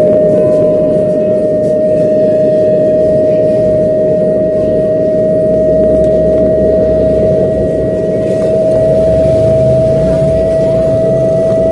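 A home theatre speaker putting out a loud, steady whistle: one held tone that creeps slightly higher in pitch, over a rough hum. This is the amplifier fault that makes the system sound like a train whistle.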